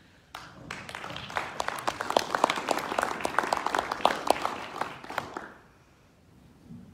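Audience applauding, starting about half a second in, swelling, then dying away after about five seconds.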